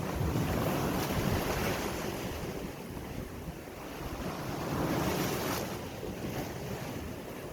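Sea waves washing in, swelling louder twice, with wind rumbling on the microphone.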